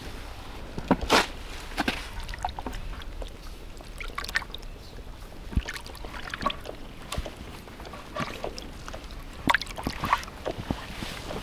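Water splashing and dripping in short, irregular bursts, with scattered small clicks and knocks.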